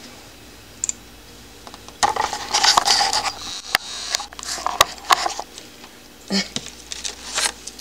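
Handling noise around a clear plastic tub of roaches and substrate. About two seconds in there is a burst of rustling, followed by scattered sharp clicks and short rustles.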